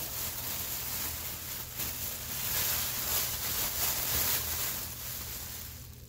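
Thin plastic bag being opened and handled, crinkling and rustling.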